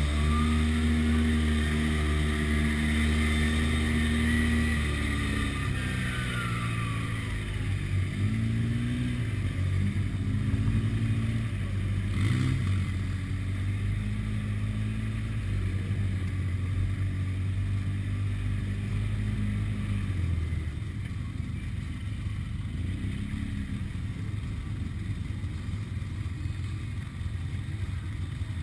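Side-by-side UTV engine running steadily on a trail, its note dipping and picking up again with the throttle in the first few seconds. A single knock comes about twelve seconds in. The engine drops to a lower, quieter note about two-thirds of the way through as the vehicle slows.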